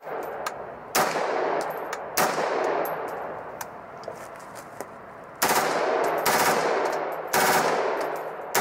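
M16-pattern rifle firing: single shots at first, then three short bursts of rapid fire in the second half, each shot followed by an echoing tail.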